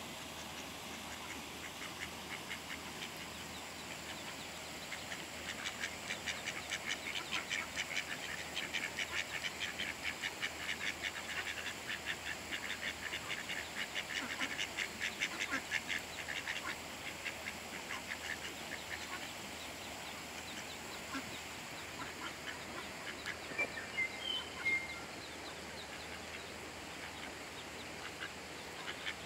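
Mallard ducks with ducklings calling: a long run of rapid, short calls through the middle, then a few brief high calls later on.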